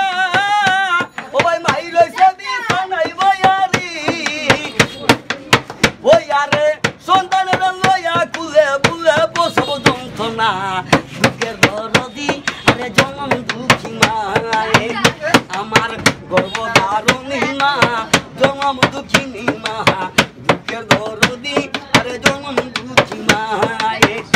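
Palm slaps on a corrugated metal rolling shutter beaten as a drum, in a quick steady beat. A man's wavering sung melody carries over the beat in stretches.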